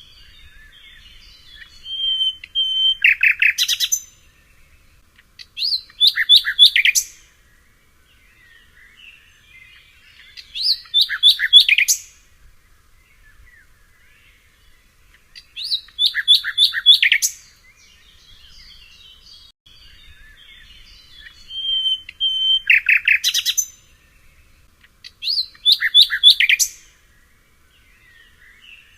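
Songbirds singing: one bird repeats a loud, rapid song phrase six times, every few seconds, sometimes opening with a short held whistle, while quieter chirps from other birds fill the gaps.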